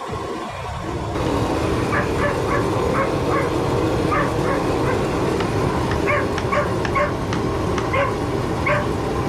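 A dog barking and yipping in a quick irregular string of short calls, over a steady low mechanical rumble.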